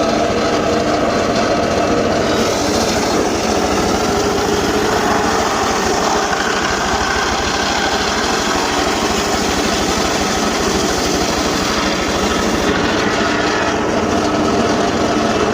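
Petrol engine-driven saw running steadily at high speed while cutting gmelina wood, with a harsher hiss added from about two seconds in until near the end.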